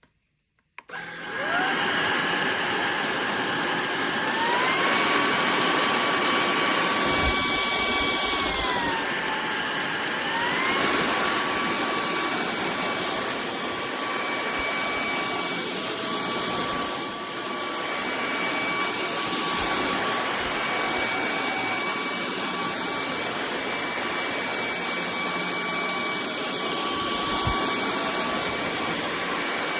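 Stanew cordless stick vacuum switched on about a second in, its motor running with a loud airflow hiss and a steady high whine. The whine steps up in pitch around four to five seconds, drops back around nine to ten seconds, then steps up again and holds, as the vacuum is switched between its two power modes.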